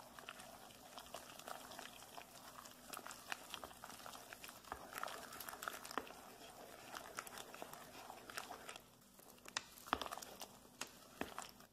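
A wooden spatula stirring rice flour into hot chopped taro and water in a stainless steel pot, mixing the taro cake batter: faint, irregular scraping and clicking of the spatula against the pot. There is a short pause about nine seconds in.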